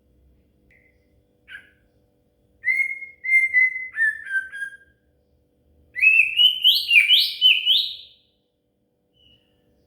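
White-rumped shama (murai batu) singing: a few short chips, then a phrase of clear whistled notes about three seconds in, and a louder run of rising whistles from about six to eight seconds. A faint steady hum runs underneath.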